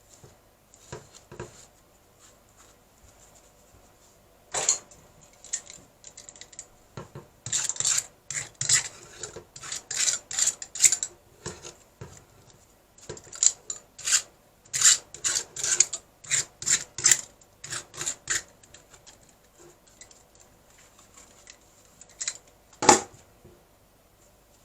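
Hard objects being handled: irregular scraping, rubbing and clicking in quick clusters, ending in one sharp knock near the end.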